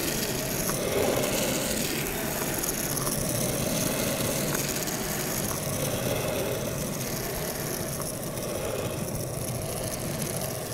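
Longboard wheels rolling fast over asphalt, a steady rumble with a few faint ticks.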